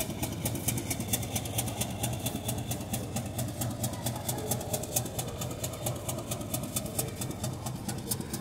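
Diesel locomotive engine running steadily as the train pulls away, a low drone with a rapid, even ticking over it, about seven a second.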